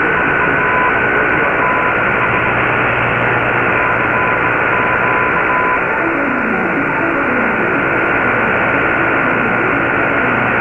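Weak shortwave broadcast on 15140 kHz on an Icom IC-R8600 in synchronous AM: dense static hiss, muffled above the narrow AM passband, with a steady high whistle through it. Faint broken beeping stops about halfway, after which faint falling tones come through the noise.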